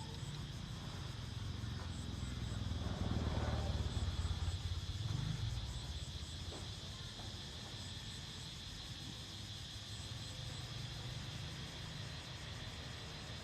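Insects calling steadily in a high, even drone with short repeated chirps above it, over a low rumble that grows louder for a couple of seconds about three seconds in.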